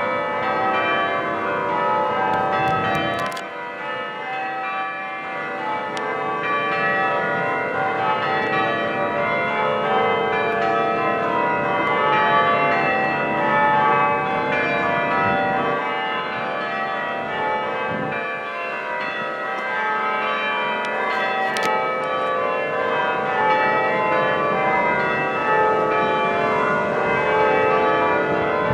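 Six church bells ringing changes full-circle, a continuous stream of strokes in a treble bob minor method.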